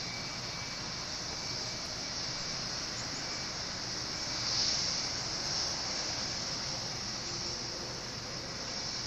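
Rolls-Royce RB211 jet engines of a Boeing 757 at taxi power as the airliner rolls past close by: a steady high hiss that swells briefly about halfway through.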